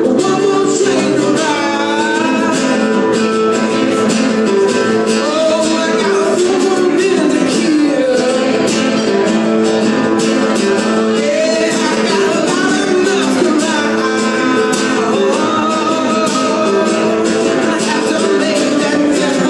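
A man singing live to his own strummed acoustic guitar, with a second guitar playing along; his voice comes and goes between sung phrases over steady strumming.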